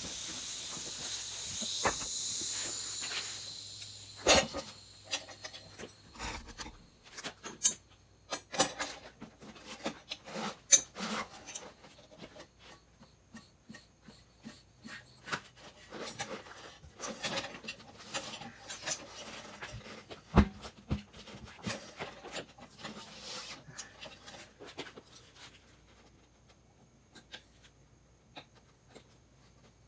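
Air hissing out of a truck tire, dying away over the first few seconds as it deflates. After that come scattered light clicks and knocks of hand work on the wheel, with one sharper knock about two-thirds of the way through.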